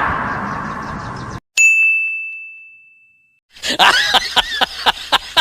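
A single bright ding sound effect: one struck, bell-like high tone that fades out over about a second and a half. Before it, a noisy sound cuts off abruptly. Near the end, quick snickering laughter begins.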